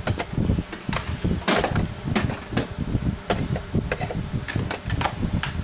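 Irregular clunks, knocks and rattles of a bagless upright vacuum being handled and moved into place before it is switched on.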